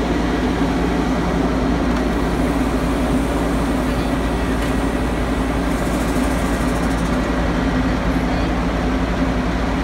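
Steady drone of an idling diesel semi-truck engine, an even hum that holds one pitch without revving.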